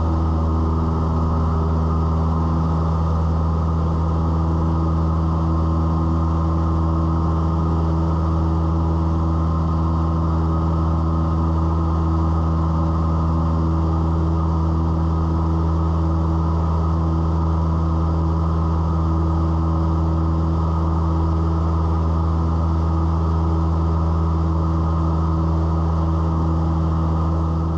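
Cessna 172's piston engine and propeller running steadily at constant power, heard inside the cabin as an even drone with no change in pitch.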